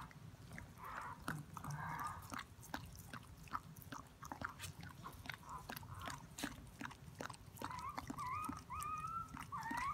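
Border collie licking her newborn puppy clean, with many short wet smacking clicks from her tongue. Near the end, the newborn puppy gives a few short high wavering squeaks.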